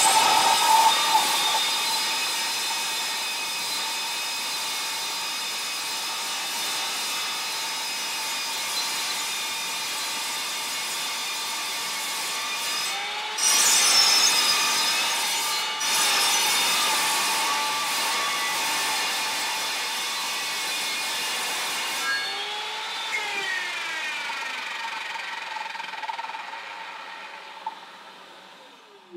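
Evolution multi-material mitre saw cutting through steel tubing: a long, steady, high-pitched metal-cutting screech with ringing tones, getting louder about halfway through. Near the end the blade is released and winds down, its pitch falling as it fades.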